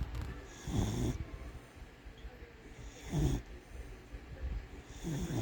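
A sleeping pet snoring: three snores about two seconds apart.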